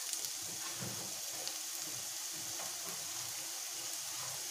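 Chopped onions sizzling steadily in hot oil, just tipped into the pan on top of fried cumin seeds, ginger, garlic and green chillies.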